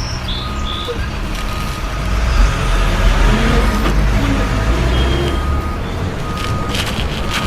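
Heavy vehicle engine rumbling, louder from about two seconds in, with a reversing alarm beeping repeatedly over it.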